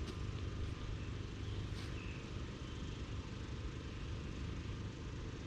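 Steady outdoor background noise: a low rumble with an even hiss and a few faint clicks.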